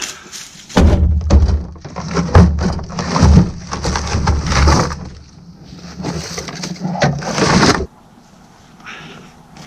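Sawn log rounds knocked, scraped and set down onto a metal cargo-bed tailgate right next to the microphone: repeated heavy wood-on-metal thuds and rubbing with a deep rumble. The noise stops suddenly about eight seconds in.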